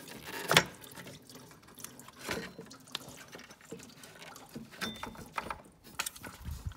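Scattered clicks and knocks of a toothed timing belt being worked off the cam pulleys and tensioner of a 1.6 L engine by hand. A sharp knock comes about half a second in.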